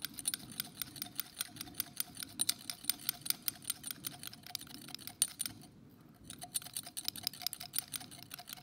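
Glass thermometer clinking rapidly against the inside of a glass test tube as it stirs baking soda into the liquid, several light clicks a second, with a brief pause about six seconds in.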